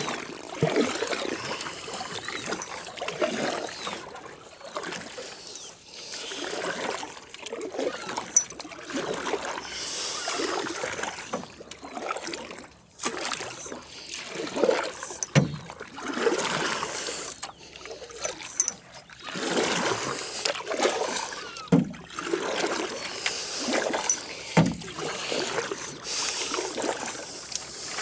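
Water splashing and sloshing around a small metal rowboat as it is rowed, in uneven surges every couple of seconds, with a few sharp knocks.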